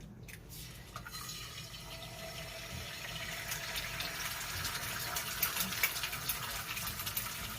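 Egg frying in hot bacon fat in a cast iron skillet: a sizzle that starts about a second in and grows louder, with a thick spray of crackles and spits in its second half. The fat is running a little too hot.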